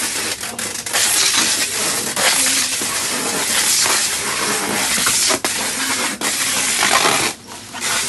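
Packing tape being pulled off a handheld tape dispenser and wound around a parcel wrapped in a plastic bag, with the plastic crinkling. It is loud and rasping, with short breaks, and drops away about seven seconds in.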